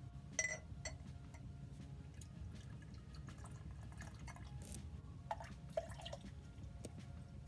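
A drink being poured and mixed: liquid pouring and dripping into a glass, with a few sharp clinks of glass or bottle, the loudest about half a second in.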